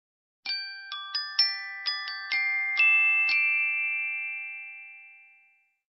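Short glockenspiel jingle of about nine quick struck notes, rising and falling, with the last notes ringing on and fading away: an intro logo sting.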